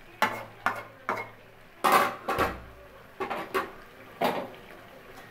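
Flat metal spatula scraping and knocking against an aluminium karahi while stirring a curry: about eight clinks at uneven intervals, the loudest about two seconds in.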